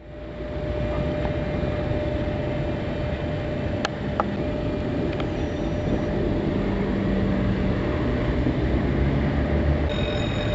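Steady rumble of road vehicles passing a level crossing and an approaching rail-works locomotive, with a steady mid-pitched hum throughout and a couple of faint clicks. Near the end, several higher steady tones begin.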